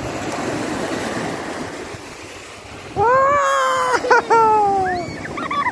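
Small waves washing up the beach, then about halfway through a young child's voice cries out over the surf in several long calls that fall in pitch, louder than the waves.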